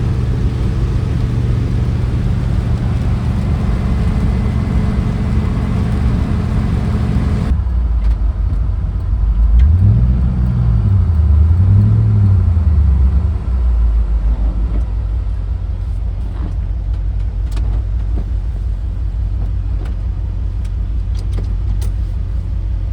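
Car engine idling steadily, blipped twice about ten seconds in, rising and falling in pitch each time before settling back to idle.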